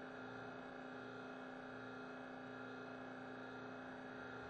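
Faint, steady electrical hum made of several unchanging tones over a light hiss: the recording's background noise with nothing else happening.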